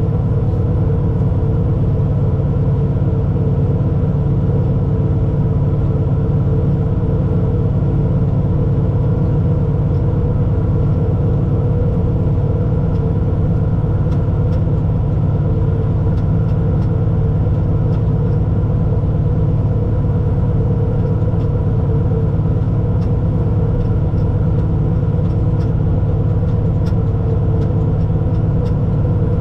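Allis-Chalmers 7095 tractor's diesel engine running steadily under load as it pulls and powers a forage harvester chopping hay, heard from inside a sound-deadened cab.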